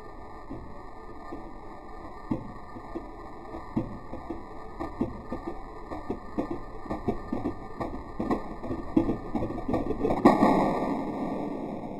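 Whirlpool dryer induction motor's centrifugal switch clacking: irregular clicks and knocks that come faster and louder, then a loud buzzing burst about ten seconds in that slowly dies away.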